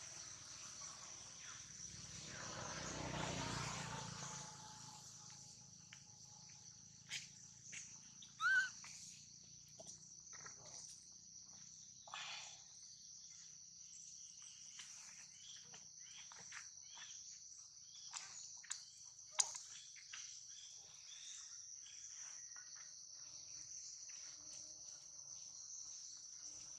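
Steady high-pitched drone of insects in the forest, with scattered light rustles and clicks from movement in dry leaf litter and a short sharp chirp about eight seconds in.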